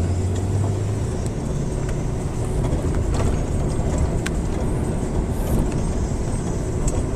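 Car engine and road noise from inside a moving vehicle: a steady low rumble, with the engine hum strongest about the first second, and a few faint clicks.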